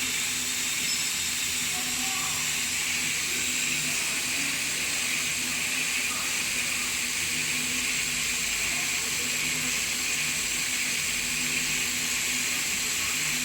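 3D printer filament extrusion line running: a steady hiss over a low, even machine hum.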